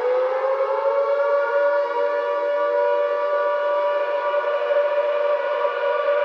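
Sustained siren-like tone over a stadium sound system, gliding up in pitch in the first half-second and then holding steady.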